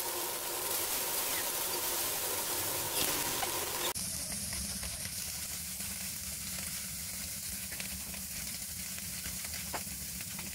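Mudskippers sizzling as they pan-fry in oil in a wok, with scattered crackles. About four seconds in the sound changes abruptly and a low rumble comes in under the sizzle.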